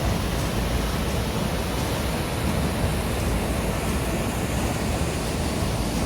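Steady rushing of a river or waterfall, an even roar of white water.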